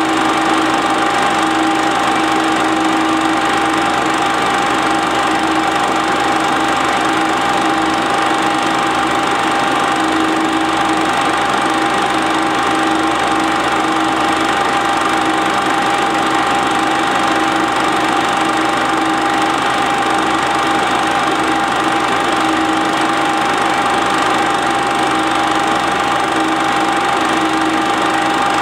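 Standard 8 cine projector running: a steady mechanical whirr with a constant motor hum.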